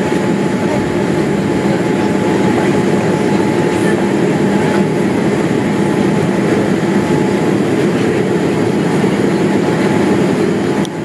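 Jet airliner cabin noise heard from a window seat in flight: a steady rush of engine and airflow noise with a low, even hum.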